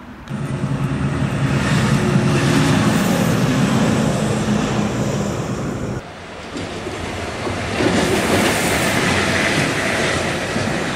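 Electric locomotive passing close by on the tracks. Its steady running noise and wheel noise come in suddenly, break off about six seconds in, then swell again as it approaches and goes past.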